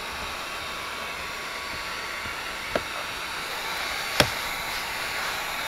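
Wagner heat gun blowing steadily, heating the tint film to seal its bottom edge, with two sharp clicks, the second louder, in the second half.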